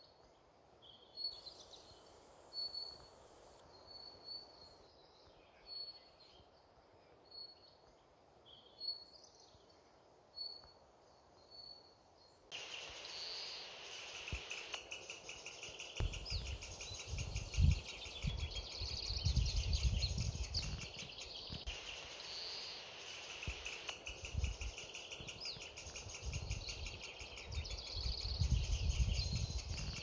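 Woodland ambience: a bird repeats a short high call about every second and a half. About halfway through this gives way to a steady high insect chorus, with bird calls over it and low rumbling gusts, the loudest just past the middle.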